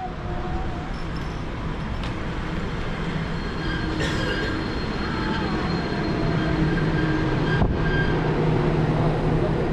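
Yui Rail rubber-tyred straddle monorail train pulling into the station and slowing along the platform. It makes a steady running noise with a faint whine that falls in pitch as it slows, and a brief knock near the end.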